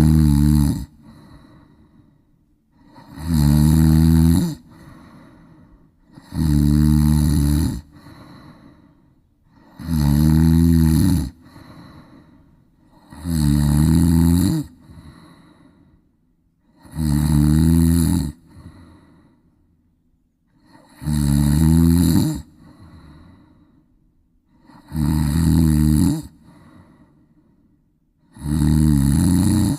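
A large, overweight cat snoring in deep sleep: a loud, rasping snore about a second long, repeating evenly every three and a half seconds or so, with a softer breath between.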